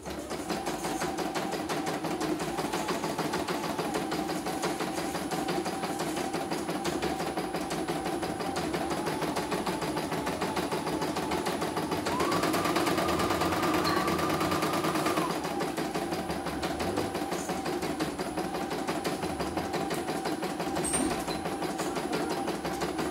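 CNY computerized embroidery machine stitching a design: fast, even needle strokes over a steady motor whine. For about three seconds past the middle the whine is higher and louder.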